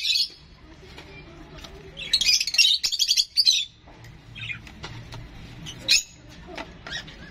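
Young rosy-faced lovebird chirping in quick, high, rapidly repeated bursts while it is hand-fed formula from a syringe: the food-begging calls of a hand-reared bird. The longest burst comes about two seconds in, and a single sharp call near six seconds.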